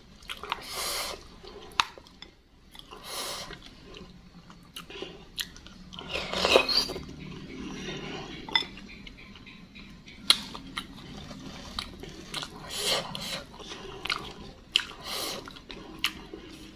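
Close-miked chewing of bakso meatballs, wet and irregular, with a few sharp clicks of the wooden spoon and fork against the ceramic bowl.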